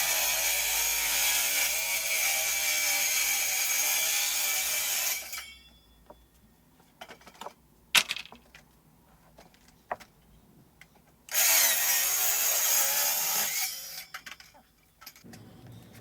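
Power drill driving screws into layered plywood, in two runs: the first ends about five seconds in and the second lasts about two seconds, near the middle-to-end. Between them are a few sharp clicks and knocks.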